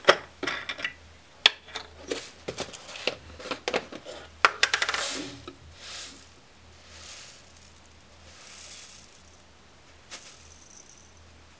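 Screw caps being twisted off glass containers and set down on a tabletop, then small 4A molecular sieve beads clinking into a brown glass bottle as they are poured from an amber glass jar. A quick run of sharp clicks and clinks comes first, with a dense clatter about five seconds in, and only a few faint sounds after that.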